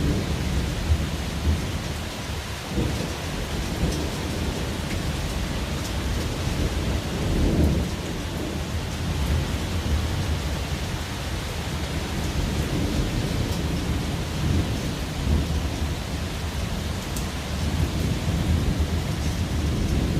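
Thunderstorm: steady rain with low rolling thunder rumbling throughout, swelling louder about a third of the way in.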